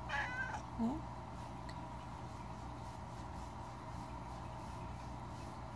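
Domestic cat meowing: two short meows within the first second, the second lower than the first, then only a steady low hum.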